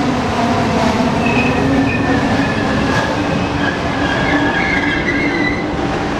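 Trenitalia Minuetto electric multiple unit passing at close range, its wheels rumbling over the rails. Thin high squeals come in from about a second in until near the end, and the sound eases slightly as the last car goes by.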